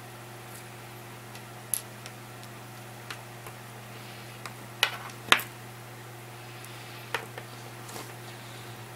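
Scattered small clicks and taps of a wristwatch and its strap being handled: the spring bar and strap worked off the watch lugs, with the loudest click about five seconds in. A steady low hum runs underneath.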